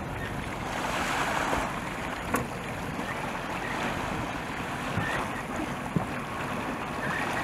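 Wind buffeting the microphone over choppy open water, with water washing and splashing, and a couple of brief knocks.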